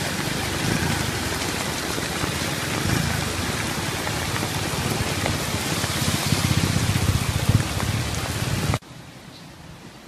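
Heavy rain falling and floodwater rushing over a road, a dense steady hiss that drops away abruptly near the end to a fainter wash.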